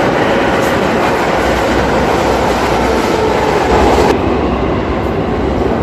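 Saint Petersburg metro train running past the platform: a loud, steady rumble and rattle of wheels on track with a faint whine. The higher hiss cuts off suddenly about four seconds in.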